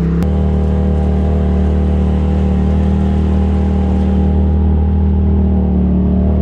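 Polaris RZR side-by-side engine running at a steady trail speed, heard from the open cab. About a quarter second in the engine tone changes suddenly, then holds steady.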